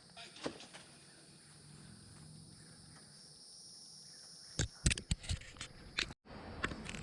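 Night insects trilling steadily in two high bands. Several sharp clicks or taps come about four and a half to six seconds in, followed by a brief dropout in the sound.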